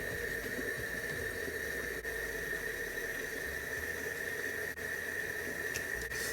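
Steady hiss with a faint constant high-pitched tone underneath, with no distinct events.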